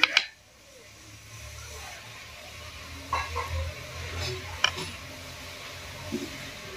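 Metal spoon scooping cooked vegetable filling out of a clay bowl and dropping it into a rice-dough cup: a sharp knock at the start, then soft scrapes and a few light clicks about three to five seconds in, over a low steady hum.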